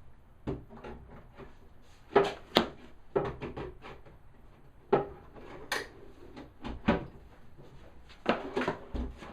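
A plywood drawer being slid in and out on newly installed drawer runners to test them, with a series of knocks and clunks as it opens and shuts.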